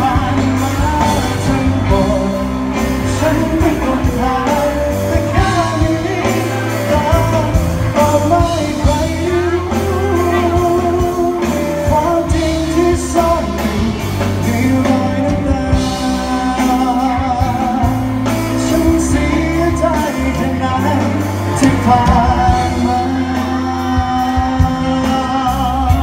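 Live band playing a Thai pop ballad, with electric guitars and keyboard over a heavy bass low end and a lead vocal line on top, heard through the PA in a large hall.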